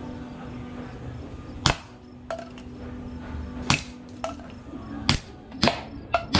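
Gas-powered airsoft gun shots at plastic bottle targets: four sharp cracks, the last two close together, with quieter knocks in between as BBs strike and bottles are knocked off.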